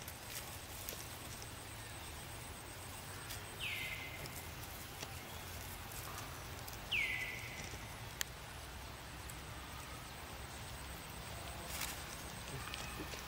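Two high calls about three seconds apart, each sweeping quickly down and then levelling off, over a faint, fast, high pulsing trill and a few sharp clicks.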